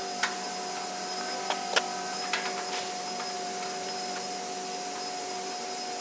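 A handful of sharp clicks and taps in the first three seconds, the loudest a little under two seconds in, as hands work the sheet-metal cabinet panel of an air-conditioner condenser unit, over a steady humming drone.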